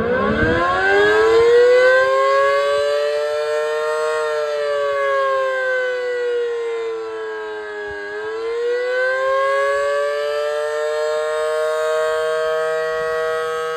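Federal Signal Model 5BT outdoor warning siren sounding its attack signal: it winds up quickly in pitch at the start, then wails slowly down and back up again. Two tones sound together through the wail.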